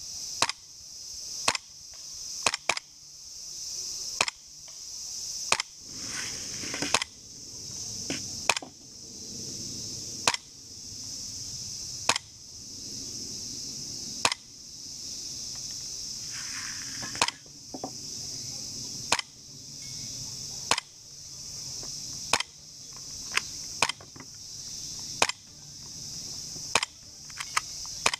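VFC Sig Sauer M17 gas blowback airsoft pistol firing a steady string of sharp shots, about one a second and sometimes two in quick succession, the full metal slide cycling with each shot. Insects keep up a steady high-pitched buzz behind the shots.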